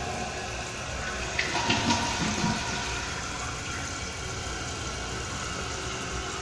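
2002 American Standard Cadet toilet tank refilling after a flush, water hissing in steadily through the fill valve. There are a couple of clicks and a brief louder gurgle about one and a half seconds in.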